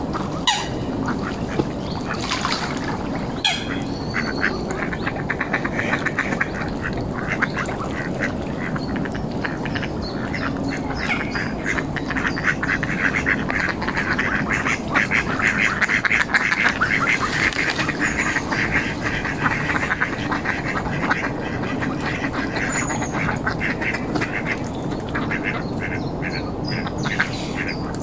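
Mallard ducks quacking in a steady run of rapid, overlapping calls, busiest about halfway through.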